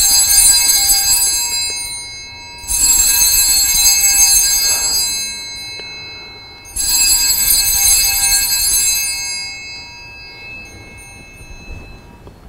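Altar bell struck three times at the elevation of the chalice after the consecration at Mass, each stroke a bright high ringing that dies away over a few seconds, the strokes about four seconds apart.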